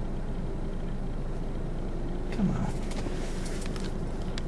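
Steady low hum of a vehicle, heard from inside its cabin. About two and a half seconds in there is a short falling sound, the loudest moment, and a few light clicks follow.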